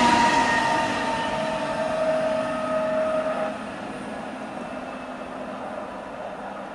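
Red electric S-Bahn train moving away on the rails, its running noise carrying several steady whining tones that slide slightly lower in pitch as it goes. The sound drops off abruptly about three and a half seconds in, leaving a much fainter, steady rail rumble from a distant approaching train.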